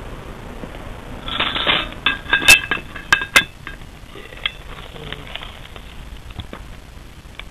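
Heavy cast-iron Dutch oven lid lifted off the pot: a rough scrape, then several sharp metal clinks about two to three and a half seconds in, with a few lighter ticks after, over a steady hiss.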